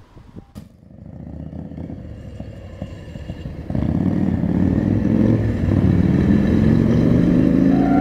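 Road traffic crossing a railway level crossing: a motorbike and cars run past, with one engine rising in pitch as it pulls away, loud from about four seconds in. Right at the end, the crossing's electronic warning bell starts ringing.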